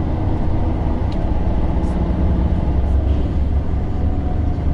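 Steady low rumble of an intercity bus's engine and road noise, heard from inside the moving passenger cabin.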